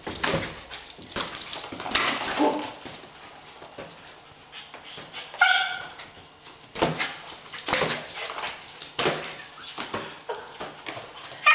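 Mini long-haired dachshund puppy giving a few short whimpering yips, amid irregular taps and thumps as a balloon is knocked about.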